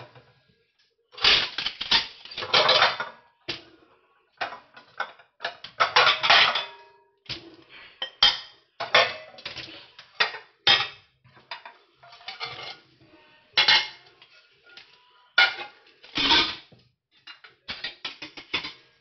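Washed glass bowls and plates clinking and clattering as they are set down and stacked upright on a dish-drying mat. The knocks come in irregular clusters, some with a brief ring.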